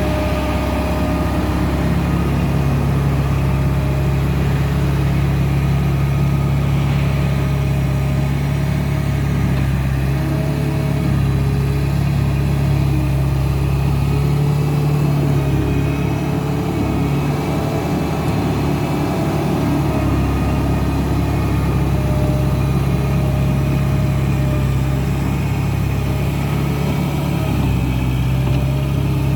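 A construction loader's diesel engine running steadily, its deep low rumble easing for a few seconds midway before returning.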